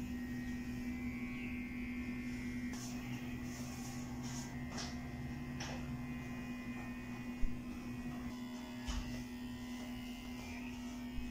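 Corded electric pet hair clippers buzzing steadily as they shave a small dog's coat, heard muffled through a window pane, with a few faint taps.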